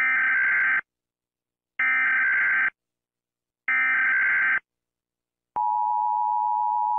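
Emergency Alert System tones: three short bursts of screechy data tones, each under a second, followed about five and a half seconds in by the steady two-tone attention signal, marking an emergency broadcast interruption.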